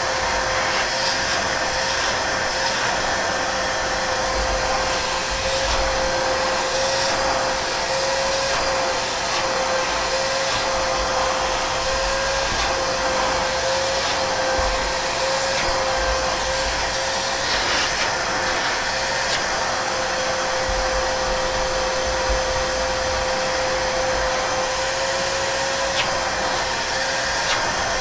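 Fujihama 1200 W wet-and-dry drum vacuum cleaner running steadily, a constant motor whine over the rush of air, with a few faint ticks.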